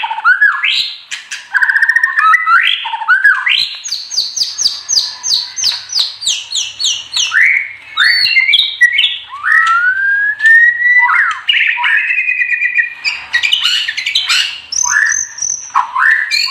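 White-rumped shama (murai batu) in full, continuous song. It pours out varied phrases: fast runs of repeated sharp, sweeping notes, mixed with slurred whistles, and a long rising whistle about two-thirds of the way through.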